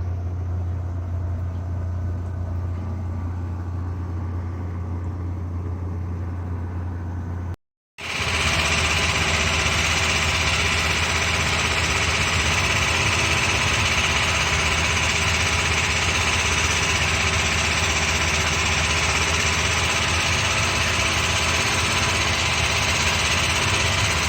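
An engine running steadily at idle, with a low hum. After a sudden short dropout about eight seconds in, a louder engine sound returns with a steady hiss over it.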